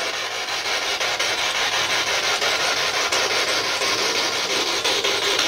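Spirit box sweeping through radio frequencies: a steady rush of choppy radio static with no voice coming through.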